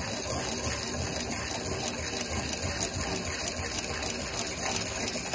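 Hand-cranked piston ring grinder: its abrasive wheel grinding steadily against the end of a top compression ring as the crank is turned, filing open the ring's end gap.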